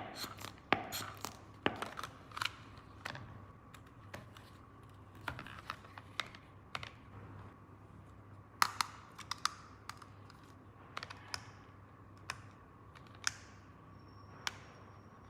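Plastic toy pieces being handled: irregular sharp clicks and taps, closer together in the first few seconds and more spread out after, with a little rustling.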